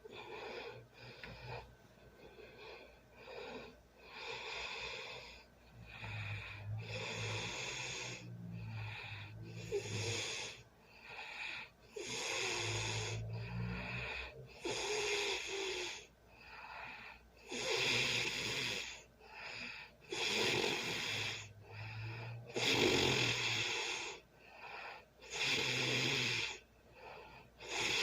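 A sleeping person snoring: repeated breaths with a low rattling buzz and a breathy hiss, one every second or two, getting louder in the second half.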